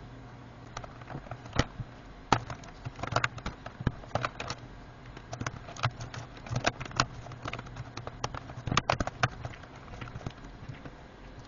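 Plastic keyboard trim piece of a laptop being pressed down and snapped into place: a series of irregular sharp plastic clicks and taps.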